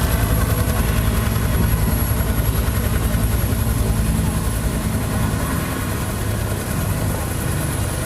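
Helicopter running close by: a steady, rapid rotor beat with a thin high turbine whine over it, easing off slightly near the end.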